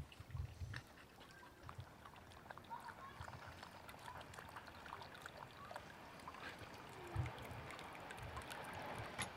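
Huskies drinking, with faint water trickling and splashing and many small scattered clicks of lapping. A few dull low bumps break in, the strongest about seven seconds in.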